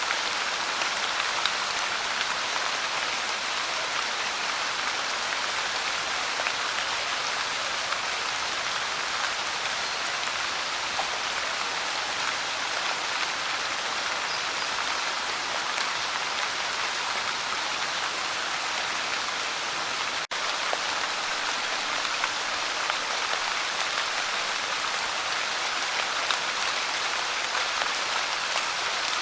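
Light rain falling steadily: an even hiss of many small drops, with a split-second dropout about twenty seconds in.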